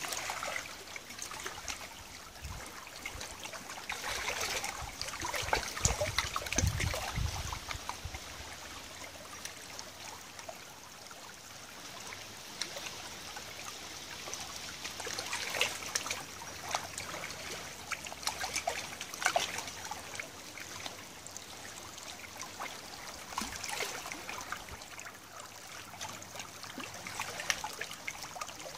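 River water trickling and lapping along a muddy tidal bank, a steady fizzing with many small crackles and drips, and brief low rumbles about four to seven seconds in.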